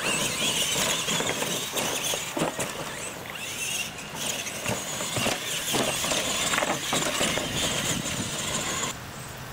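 Radio-controlled monster trucks racing on a dirt track: a steady high whine of electric motors and gears with tires churning dirt, and scattered sharp knocks as the trucks hit ramps and obstacles. The sound cuts off sharply near the end.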